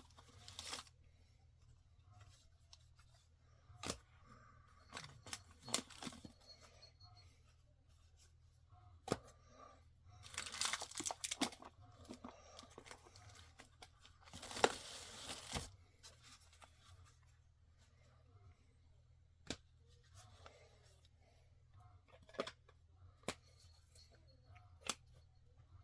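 Packaging being torn open and crinkled in two longer bursts, with scattered light clicks and knocks as parts are handled.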